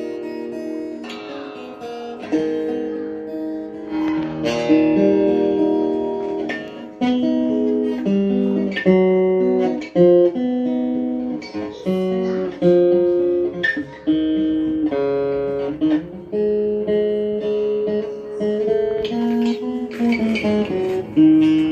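Acoustic guitar being played, with strummed and picked chords changing about once a second.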